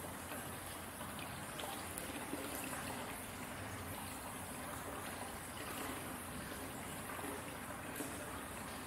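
Hot-spring water running steadily into an onsen bathtub with an even trickling flow.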